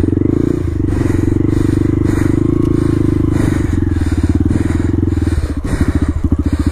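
Honda Grom's 125 cc single-cylinder four-stroke engine pulling the bike through snow, held at steady revs, then dropping to a slower, pulsing chug about three and a half seconds in.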